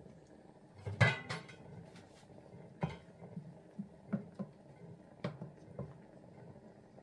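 Wooden spoon knocking against the sides of a metal cooking pot while stirring soup: a sharp clatter about a second in, the loudest, then a string of lighter knocks.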